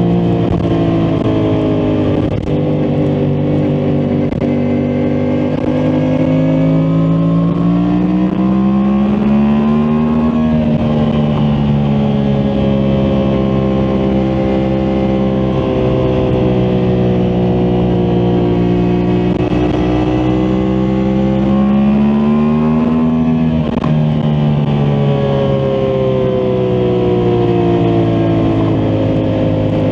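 2023 Yamaha MT-10 SP's crossplane inline-four engine running on the road. The revs climb for several seconds, ease off about ten seconds in, hold fairly steady, then climb again and drop suddenly about 24 seconds in before slowly falling away.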